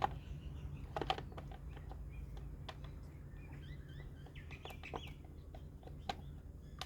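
Birds chirping faintly in the background, with a few sharp clicks and knocks of hard parts being handled, spaced a second or more apart.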